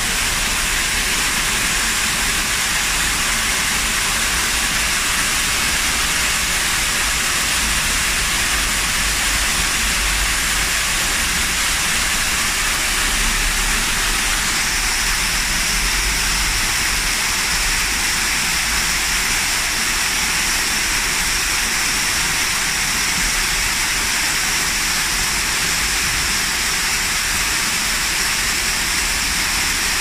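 Artificial waterfall: water pouring down over rock faces and spattering onto the rocks below, a steady rushing hiss.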